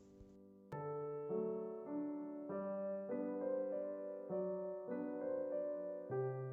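Background piano music: gentle chords that come in about a second in and change every half second or so.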